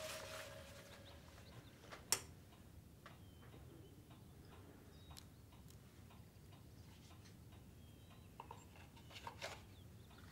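Faint small clicks and taps of a metal-framed handbag and coins being handled in a quiet room, with one sharp click about two seconds in and a few more near the end.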